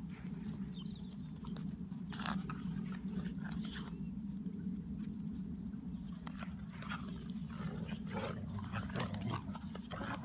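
Five-month-old deerhound puppies growling steadily in play, with scattered scuffling and clicks as they tussle.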